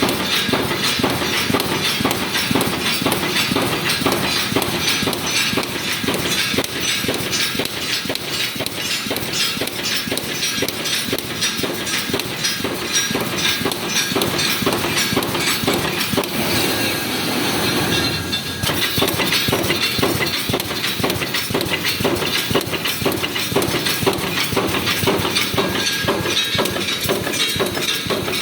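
Automatic wire mesh resistance welding line running: a steady, dense clatter of rapid metallic knocks from the welding heads and wire-feed mechanism.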